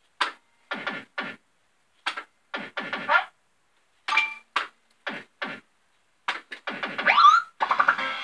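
Fruit machine sound effects: a string of short electronic blips and jingles with gaps of silence between them while the reels spin and stop. A rising whoop comes near the end, then a continuous electronic tune starts.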